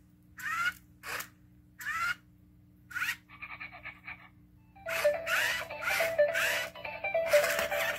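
Toy robot dog's speaker playing short chirpy electronic barks, about one every two-thirds of a second, then a brief buzzy warble, then a jingly electronic tune with more barks over it from about five seconds in as the dog moves.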